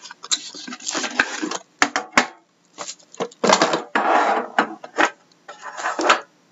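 Hand-handling of a trading-card tin box: a run of clicks and knocks as the tin is turned and its lid is lifted off. Between them come stretches of rustling from the plastic-wrapped pack inside.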